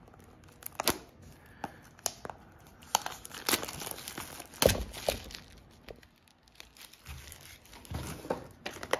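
Plastic shrink wrap being torn and peeled off a cardboard trading-card box: irregular crinkling and sharp crackles, loudest about halfway through.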